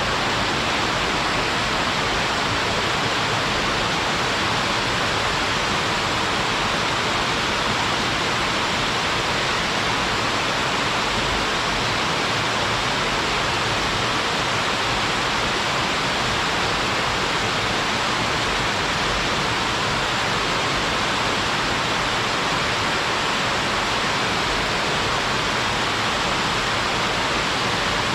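Small waterfall running steadily, water splashing down onto rocks in an even, unbroken rush of noise.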